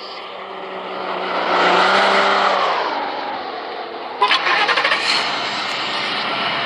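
A car going by, loudest about two seconds in with a dropping pitch, then fading. About four seconds in there is a short burst of rapid clicks or rattling.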